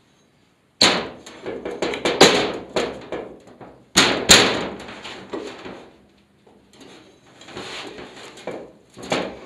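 Sharp metal knocks and scraping as a propeller hub is worked onto the flange of an airboat reduction gearbox, a snug fit. The loudest knocks come about a second in and again around four seconds in.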